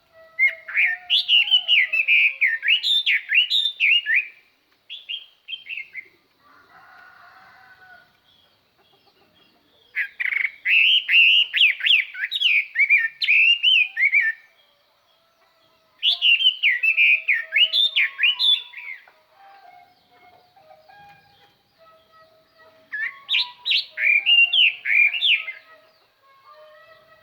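Chinese hwamei (họa mi) decoy bird singing: four loud phrases of fast, varied, sweeping whistled notes, each a few seconds long. Pauses lie between them, with softer, lower notes. This is the loud, clear song a lure bird uses to call in and provoke wild hwameis.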